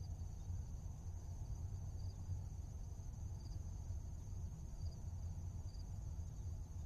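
Quiet steady background sound: a low rumble under a thin high-pitched drone, with faint pips every second or so.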